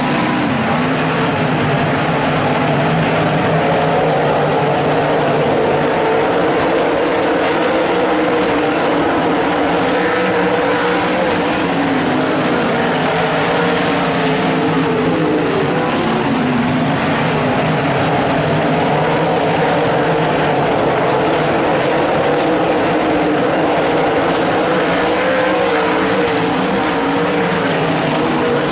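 A pack of limited sprintcars racing on a dirt oval, their V8 engines running loud and steady together. Several engine notes rise and fall as the cars lap and pass one another.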